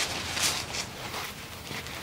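Soft rubbing and swishing sounds: a few short strokes, the clearest about half a second in.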